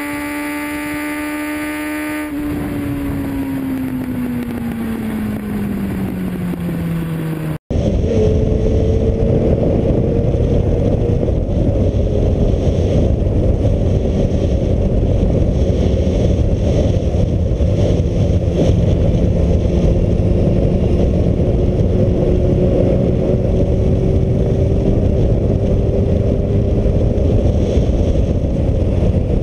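An intro sound: a pitched tone that holds for about two seconds, then slides steadily down in pitch. After an abrupt cut, heavy wind noise buffets the GoPro's microphone on a moving Suzuki Bandit, its inline-four engine faintly audible beneath the wind, its pitch drifting slowly.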